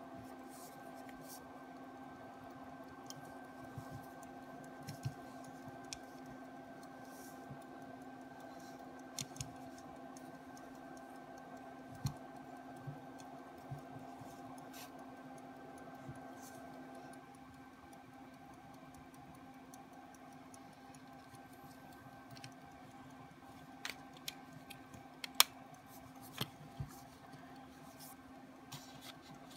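Light, scattered clicks and taps of a silver pocket watch case being handled and opened, with a sharper cluster of clicks near the end. A faint steady hum runs underneath.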